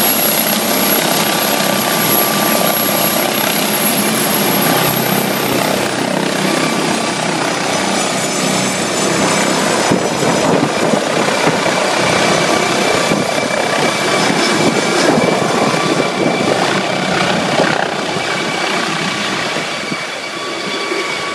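MD 902 Explorer twin-turbine NOTAR helicopter lifting off and departing: a steady rotor and turbine noise with a high turbine whine. It eases off slightly near the end as the helicopter flies away.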